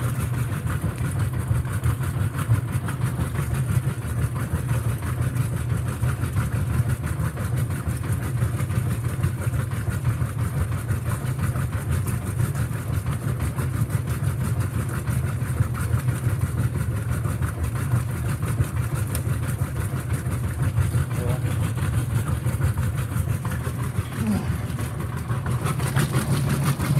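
Whirlpool direct-drive top-load washing machine agitating on its high agitation setting: a steady low motor and transmission hum.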